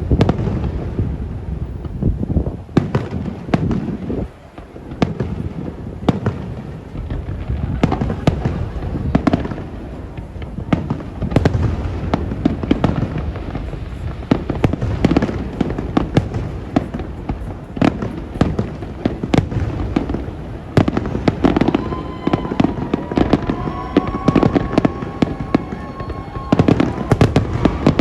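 Fireworks display going off in a dense, near-continuous barrage of bangs and crackling, with deep booms under it. From about two-thirds of the way in, a few steady and gliding pitched tones sound over the bangs.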